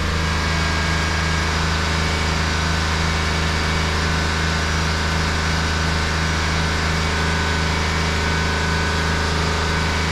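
Chevrolet Suburban's 5.3-litre V8 running at a steady high idle of about 3,000 rpm, heard from inside the cabin. The idle is high because the engine computer has not yet relearned the idle position after a new throttle body was fitted.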